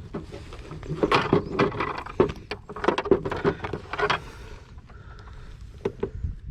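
Irregular knocks and rattles of a caught bass being handled on a measuring board in a kayak, busy for about four seconds and then thinning out.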